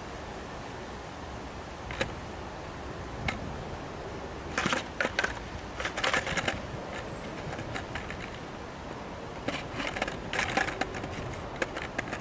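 Skateboard clicking and clattering against the coping of a concrete ramp as the rider rocks the board and shifts his feet at the top before dropping in. There are single sharp clicks, then two rattling clusters, over a steady outdoor background hiss.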